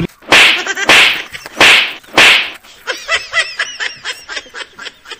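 Four short, loud swishing bursts in quick succession, followed about three seconds in by a run of high-pitched giggling laughter.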